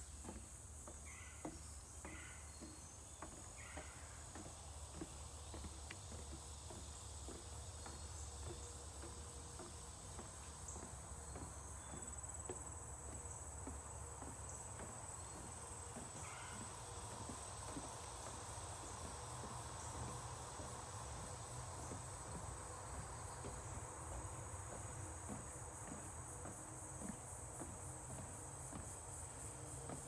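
A steady, high-pitched chorus of insects, with soft irregular footfalls on a wooden boardwalk beneath it.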